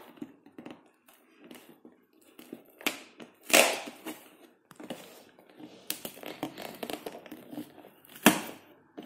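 Cardboard LEGO set box being torn open and handled: a few sharp rips of cardboard and tape, the loudest about three and a half seconds in and another just after eight seconds, with rustling between.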